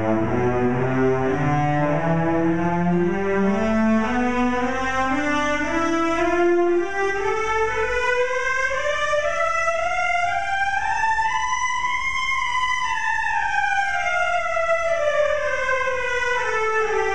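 Several cellos playing a C major scale together, climbing note by note to a top note about twelve seconds in, then stepping back down.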